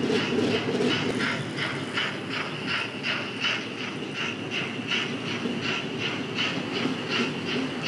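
OO gauge model of an LMS Black 5 steam locomotive with a DCC sound decoder, playing steady exhaust chuffs at about three beats a second, over the rumble of the model train running on the track.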